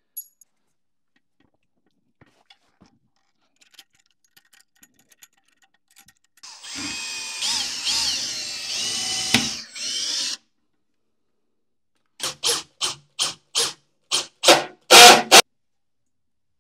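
Cordless drill-driver running for about four seconds as it drives the bolt into the toilet seat's hinge fitting, its motor pitch wavering under load. Then comes a quick run of about nine short, sharp strokes that grow louder.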